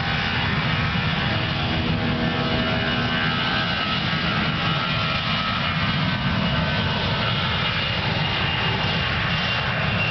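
Airbus A320's twin jet engines at take-off thrust during its take-off roll: steady jet noise with a thin high whine over it.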